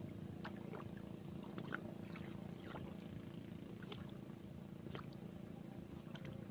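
Small fishing boat on the sea: a low steady hum under light scattered knocks, clicks and small splashes as hands work at the water over the side.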